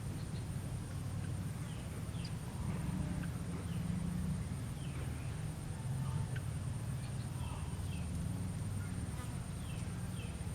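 Outdoor field ambience: a steady low rumble on the microphone with many short, high chirps that fall in pitch, scattered through, and a thin steady high tone.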